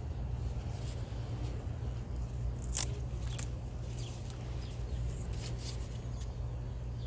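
Eggplant plant being handled while fruit is picked: leaves rustling and stems snapping twice near the middle, over a steady low rumble.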